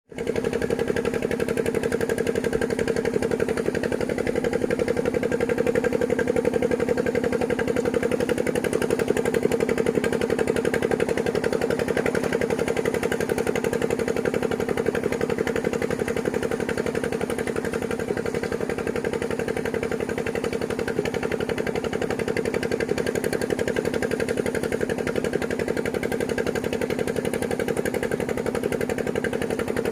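An engine running steadily at a constant speed with a fast, even pulsing throb.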